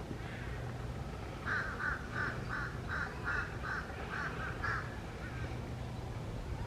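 A bird giving a rapid run of about ten short, harsh calls, roughly three a second, starting about a second and a half in, over a low steady rumble.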